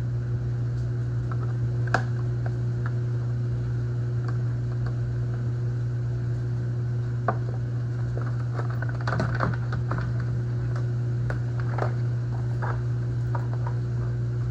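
Scattered light clicks and knocks of a plastic reservoir being worked loose from its rubber grommets, with a busier cluster about nine seconds in, over a steady low hum.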